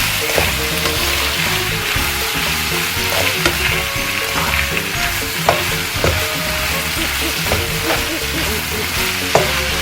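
Carrots and cabbage sizzling in hot oil in a frying pan as they are stir-fried, with a steady frying hiss and the spatula clicking and scraping against the pan a few times.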